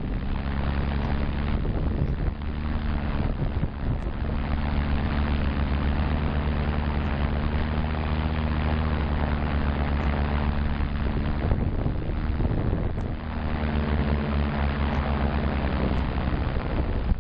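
DJI Phantom 2 quadcopter's four brushless motors and propellers humming steadily, heard close up from the on-board camera, with wind rushing over the microphone. About 13 seconds in the hum dips briefly and its pitch shifts as the motors change speed.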